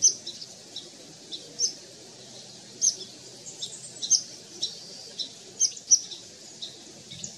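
Short, sharp, high-pitched chirps repeated at irregular intervals, roughly one or two a second, over a faint steady outdoor background.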